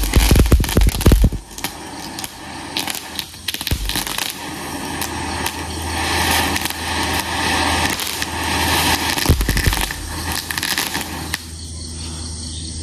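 Homemade colour lathiri, a handheld firework stick packed with homemade gunpowder, burning: a hissing jet of sparks with crackling throughout. It starts suddenly and dies down near the end.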